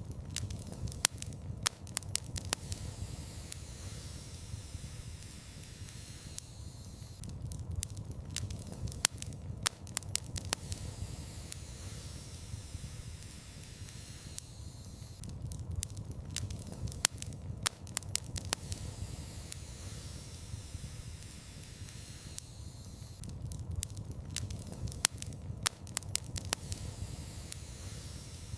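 Wood fire in a fireplace crackling: clusters of sharp pops about every eight seconds over a steady hiss and low rumble.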